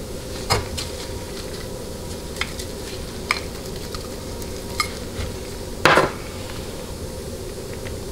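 Sharp metal clinks and clicks as a ring sizing tool is handled and fitted over a 200-4R transmission center support's stator hub to size new teflon sealing rings, with one louder metal clatter about six seconds in. A steady hum runs underneath.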